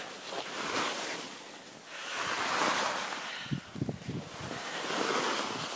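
Skis hissing over snow in about three swelling and fading swooshes, with wind rushing over the microphone as the skier moves downhill. A few short low thuds come a little past the middle.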